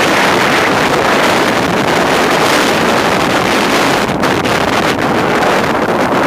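Strong bora wind, around 30 knots gusting to 35, buffeting the microphone: a loud, steady rush of noise, with surf breaking on the shore beneath it.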